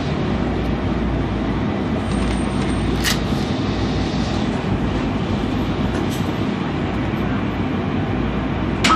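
Steady rumble of a WMATA Metrorail Breda rehab car running between stations, heard inside the car through a tunnel, with sharp clicks about three and six seconds in and again at the very end.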